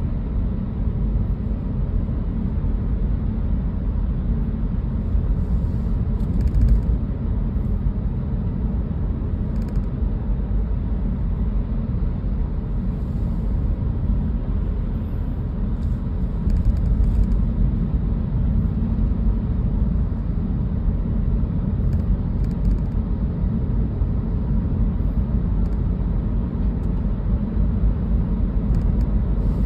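Steady low rumble of a car driving on a wet road, engine and tyre noise heard from inside the cabin. A few faint ticks come and go at irregular moments.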